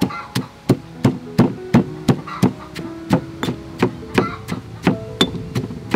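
Stone pestle pounding fresh red chilies in a stone mortar: a steady rhythm of sharp knocks, about three a second.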